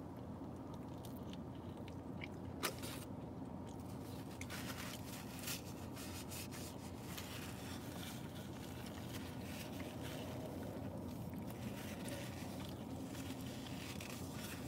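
A person quietly chewing a bite of breakfast burrito, with soft mouth sounds and a few small clicks over a steady low hum.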